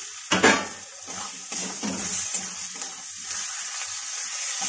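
Chopped tomatoes hitting hot mustard oil and frying onions in a kadai, which sizzles steadily, with a clatter about half a second in as they go in. A steel spatula then scrapes and stirs them into the masala in several strokes.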